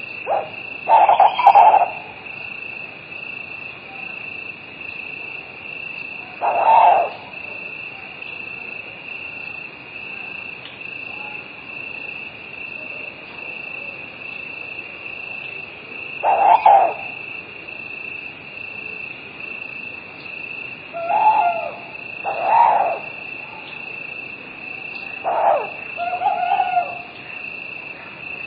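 Night chorus of crickets chirring steadily and high, with an owl hooting at irregular intervals, about eight short hoots, some in close pairs.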